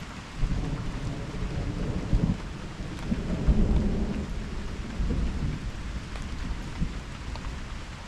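Thunder rolling through steady rain: a low rumble swells about half a second in, grows loudest a little past the middle and rumbles on, while rain hisses throughout.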